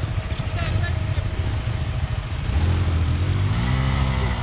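KTM Adventure motorcycle's single-cylinder engine running at low speed over grass; about two and a half seconds in it is revved up, the pitch rising a little and easing off near the end.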